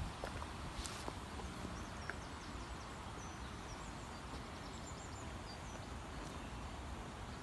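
Outdoor ambience: a steady low rumble with a few faint clicks in the first second and faint bird chirps in the middle.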